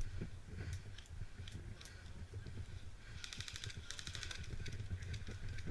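A short rapid burst of airsoft automatic fire, a fast train of clicking shots, starting about three seconds in and lasting about a second and a half, over a low rumble of movement through brush.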